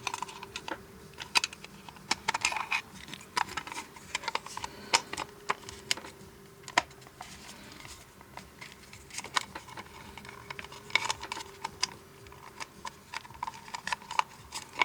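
Irregular clicks and taps of the disco-ball lamp's plastic parts being handled and fitted together during reassembly.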